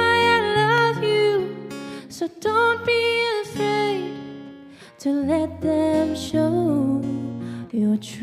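Live music: a singer with acoustic guitar accompaniment, long held notes in the voice.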